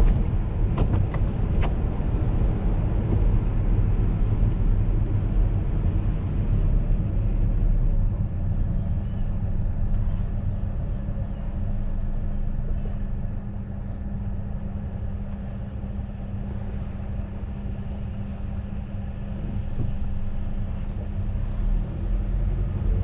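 A car driving on a wet street, heard from inside the cabin: a steady low rumble of engine and tyres with a constant hum. It eases off a little about halfway through, as the car sits idling at a red light.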